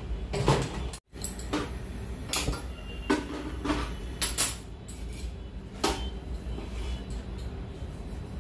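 Steel kitchenware and a plastic flour container being handled on a kitchen counter: a string of light, irregular knocks and clinks.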